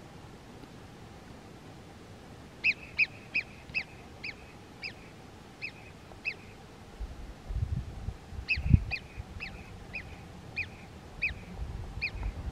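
An animal's short, sharp high-pitched calls, given in two quick series of single notes, the first starting about three seconds in and slowing as it goes, the second starting past the middle. A few low bumps, like wind on the microphone, come just before the second series.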